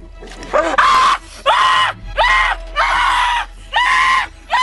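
A voice screaming in six short, high-pitched cries of about half a second each, one after another with brief gaps.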